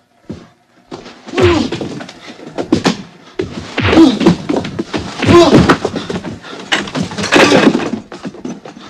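A beating on a film soundtrack: repeated heavy blows and thuds with pained cries and groans, in about five loud bursts.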